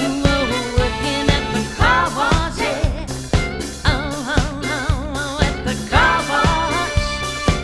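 Live band playing a funk groove with a steady, even drum-and-bass beat, while a lead line with wide vibrato plays over it.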